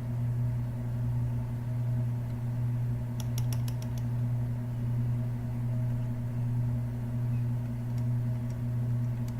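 A steady low hum throughout, with a quick run of about six computer keyboard clicks about three seconds in and two faint clicks near the end.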